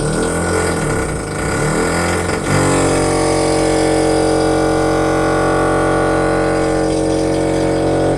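Motorcycle engine revving, its pitch rising and falling, then about two and a half seconds in jumping to a high, steady rev held for several seconds before dropping off at the end.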